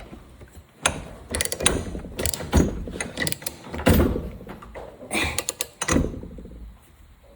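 Hand ratchet wrench clicking in uneven runs as the bolts of a new brake rotor on a 125cc ATV are tightened down, with knocks of the socket on metal.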